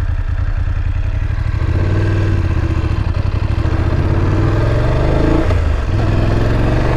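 BMW F850GS parallel-twin motorcycle engine running, then pulling away about one and a half seconds in and rising in pitch as it accelerates, with a gear change a little over five seconds in.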